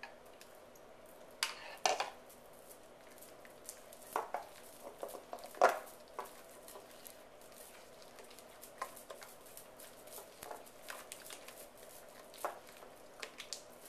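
A utensil stirring strawberry purée into thick doughnut batter in a mixing bowl, with scattered light clicks and knocks against the bowl. The loudest knock comes about five and a half seconds in.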